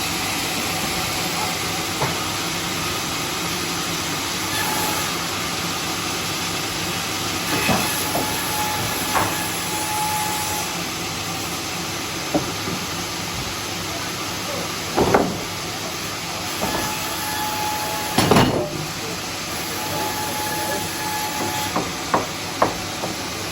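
Homemade sawmill running with a steady hissing noise, broken by several knocks, the loudest about 15 and 18 seconds in.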